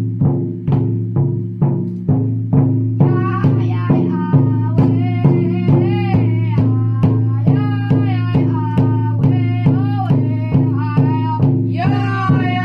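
Powwow big drum struck in a steady beat, about three beats a second. About three seconds in, several voices join in a high, wavering chant, and a stronger high voice comes in near the end.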